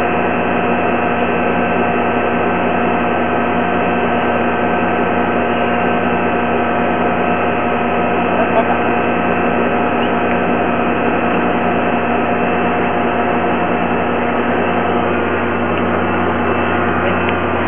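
A steady machine hum, with several pitches held level and unchanging throughout.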